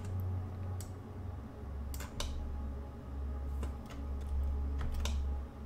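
Scattered sharp clicks and taps from a computer mouse and keyboard, about nine spread irregularly, over a steady low hum.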